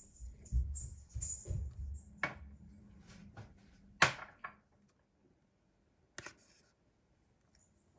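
Ingredients being added to raw chicken pieces in a glass bowl: soft low thuds in the first two seconds, then three sharp knocks against the bowl, the loudest about four seconds in.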